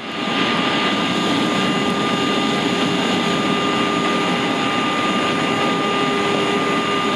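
Steady rushing noise of a jet airliner, a Boeing 757, with a few faint held tones over it and no change in level.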